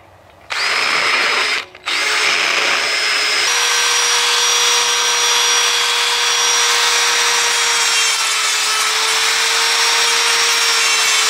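Electric drill working a steel tube, first with a rotary burr and then with a small abrasive disc, grinding out a slot. It stops briefly twice early on, then runs as a steady whine over the grinding for the rest of the time.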